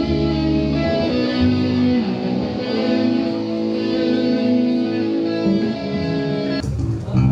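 Instrumental music: a melody of long held notes over a low bass line, the notes changing every couple of seconds.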